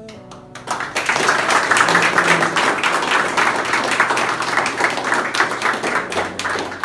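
A group of people applauding, many hands clapping together; it breaks out about a second in and drops away near the end.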